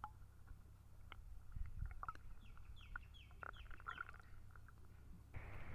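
A bird calling: a quick run of short, falling chirps in the middle, with a few faint scattered clicks around it.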